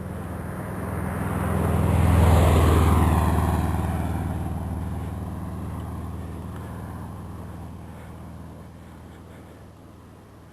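A motor vehicle passing close by on the road. Its engine and tyre noise swell to a peak about two seconds in, then die away slowly as it drives off.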